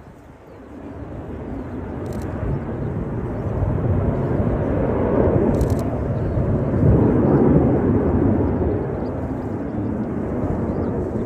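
Engines of a four-aircraft jet formation passing overhead, a broad noise that builds from about a second in, is loudest around the middle and eases slightly toward the end.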